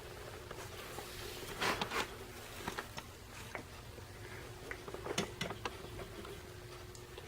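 Faint handling noises: a few scattered rustles and clicks, a cluster about one and a half to two seconds in and another a little after five seconds, over a steady low hum.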